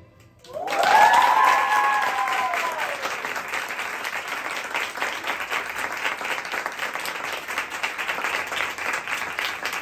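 Audience applauding, loudest about a second in and then slowly tapering off into scattered claps. High-pitched whooping cheers rise and fall over the first couple of seconds.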